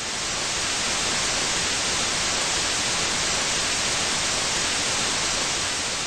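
Steady, loud white-noise hiss like TV static, fading in over the first second and starting to fade near the end: an edited static transition effect.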